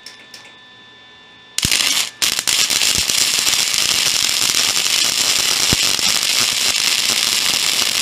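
Wire-feed welder arc crackling as a nut is welded onto a broken bolt stub to get the bolt out. The arc starts about a second and a half in, breaks off briefly, then runs steadily until it stops abruptly at the end; two faint clicks come just before it starts.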